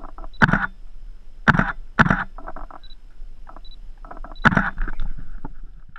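Digital SLR camera shutter firing single shots at uneven intervals, about four loud clicks with a few fainter ones between. Some shots are preceded by a short high beep.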